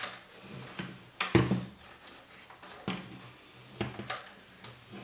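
Handling clicks and knocks inside a PC case as the front-panel switch and LED wires are strapped back: about six separate sharp knocks, the loudest about a second and a half in.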